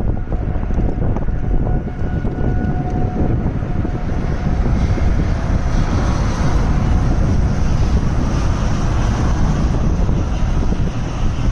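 Strong storm wind blowing hard over the microphone: a loud, steady, rumbling rush that gets somewhat stronger about halfway through.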